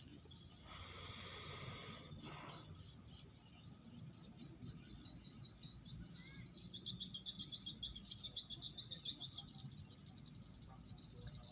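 Insects in a rice-paddy ditch chirping in a fast, pulsing, high-pitched trill that grows stronger after the first few seconds. A brief rushing noise about a second in is the loudest thing.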